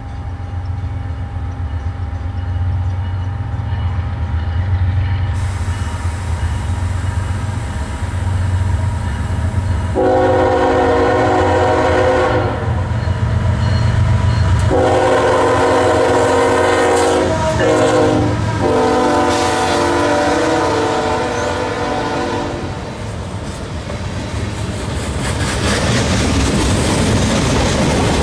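Freight train led by CSX GE diesel locomotives, engines rumbling as it approaches. About ten seconds in, the lead locomotive blows its horn: two long blasts, a short one and a long one, the grade-crossing signal. The locomotives then pass close by, and freight cars roll past with rising wheel and rail noise near the end.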